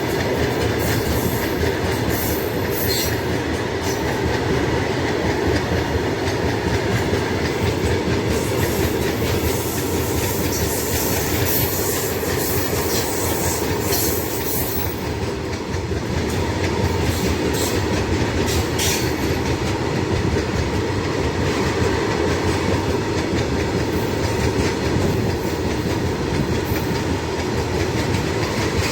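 A long freight train's wagons rolling past at speed, with steady rumble and clatter of steel wheels over the rail joints and occasional brief high wheel squeals.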